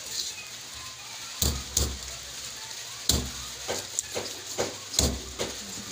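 Large knife cutting a whole minstrel sweetlips fish on a wooden board: about eight sharp knocks and crackles as the blade works along the fish and strikes the board, beginning about a second and a half in.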